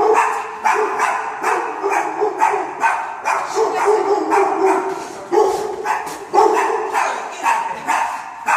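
Dogs barking and whining excitedly in quick repeated yelps, about two to three a second.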